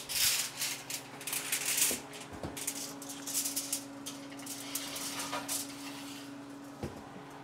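Oil heating in a frying pan, with irregular bursts of faint sizzling and crackling, heaviest in the first two seconds. A steady low hum runs under it.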